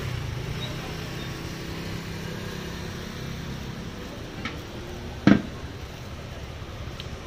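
Steady low rumble of street traffic, with one short loud knock about five seconds in.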